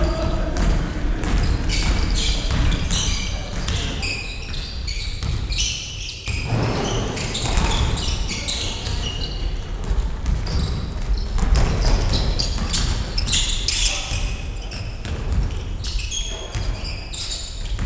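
Basketball game on a wooden gym floor: the ball bouncing as it is dribbled and sneakers squeaking in short, high chirps as players run and cut.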